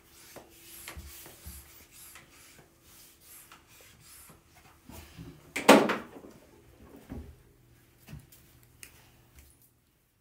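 Rummaging through a wooden cupboard: things shifted and rustling, with small clicks and knocks. There is a single loud bang a little under six seconds in, then a few lighter knocks.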